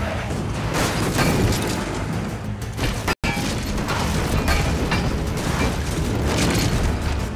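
Film action soundtrack: dramatic score music over heavy booms and crash impacts as a speeding car strikes pedestrians. Everything drops out for a split second about three seconds in, then resumes.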